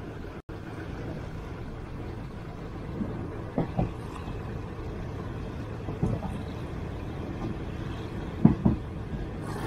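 Passenger train running along the Burma Railway: a steady rumble with a few knocks of the wheels over rail joints, coming in close pairs about a third of the way in and again near the end.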